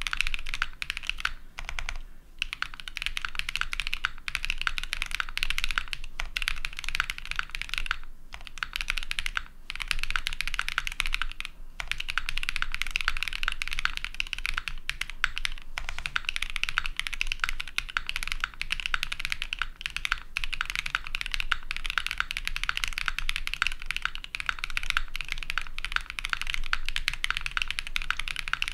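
Fast, continuous typing on a TKD Cycle7 custom mechanical keyboard with linear long-pole switches, an aluminum plate and plate and case foam. It gives a soft, foamy bottom-out clack. The typing stops briefly a few times in the first dozen seconds.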